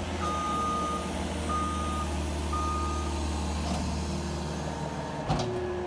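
Case TR270 compact track loader running with a steady diesel drone, its reversing alarm beeping three times about a second apart in the first three seconds as it backs up. A sharp clank about five seconds in.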